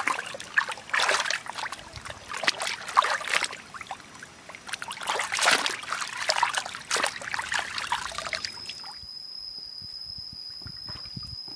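Stream water splashing and sloshing irregularly as raw beef ribs are rinsed by hand in it. About eight seconds in this cuts off and a steady high insect drone takes over, with a few faint footsteps on stones.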